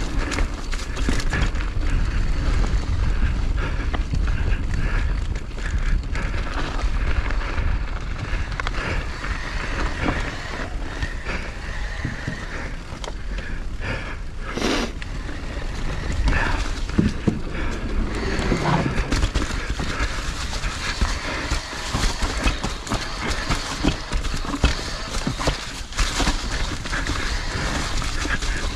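Skis sliding and scraping over packed snow on a downhill run, with wind buffeting the microphone; a sharp click about halfway through.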